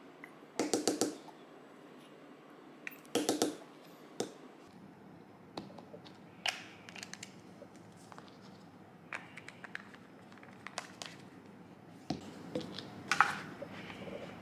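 Small plastic bottles and caps being handled on a counter while a thick cleanser is squeezed from a plastic bottle into them. There are two short runs of rapid plastic clicks, about a second in and again around three seconds, then scattered light clicks and taps, the sharpest near the end.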